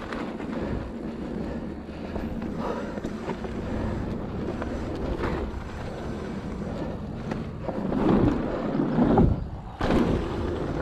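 Mountain bike rolling fast over a dirt and gravel trail: a continuous rumble of tyres on the ground with wind buffeting the microphone, and louder surges of rumble about eight to nine seconds in.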